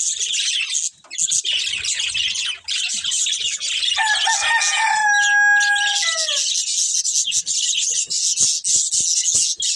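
Budgerigars chirping and chattering constantly, a dense, high twittering. About four seconds in, a lower, louder held call cuts through for about two and a half seconds, ending with a falling pitch.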